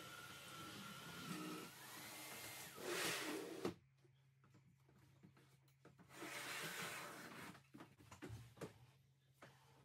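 Vacuum cleaner motor running with a steady whine that rises slightly in pitch, then cutting off abruptly about three and a half seconds in. After it come a brief rush of noise and a few light knocks and rustles of things being handled.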